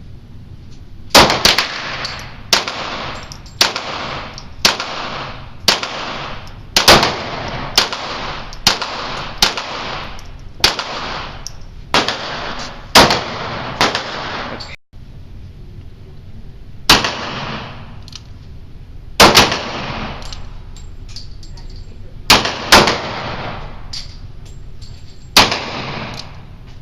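Pistol fire: a string of single shots about one a second, each trailing off in an echo, then a short pause about halfway and more shots at an uneven pace, some in quick pairs.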